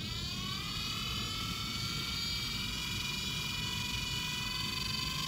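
Small electric motor spinning a wheel of neodymium magnets and running up to full speed. Its whine rises in pitch for about the first second and a half, then holds steady over a low rumble.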